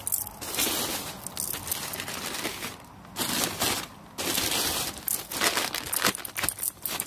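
Plastic bag crinkling and rustling as gloved hands handle and smooth it, with a couple of brief pauses near the middle.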